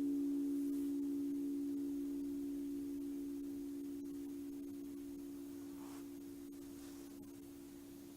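A low, steady ringing tone with a few fainter higher overtones and a slight waver, slowly dying away.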